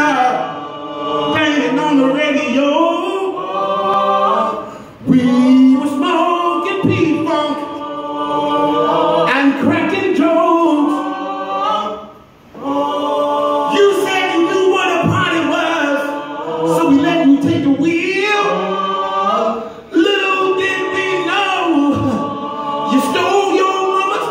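A small group of singers singing together in harmony into microphones, largely unaccompanied, in long held phrases with short breaks between them.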